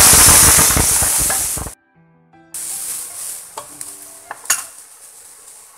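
Ginger, garlic and onion paste hitting hot mustard oil with cumin seeds, sizzling loudly; the sizzle cuts off abruptly just under two seconds in. After a short gap the paste goes on frying with a much quieter steady sizzle, broken by a few spoon knocks against the pan as it is stirred.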